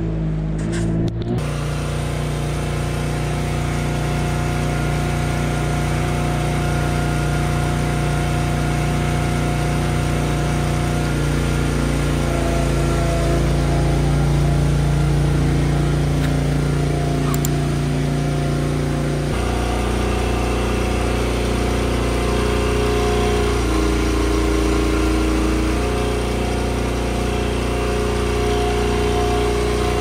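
Small engine running steadily, from a motorised calf-milk feeding cart. The engine note shifts a little about two-thirds of the way through.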